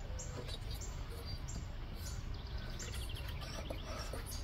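Birds chirping over steady outdoor background noise: short high chirps every half second or so and a quick trill about three seconds in.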